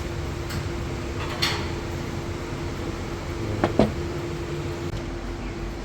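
A steady mechanical hum holding one tone, with two brief knocks, one about a second and a half in and one just before the four-second mark.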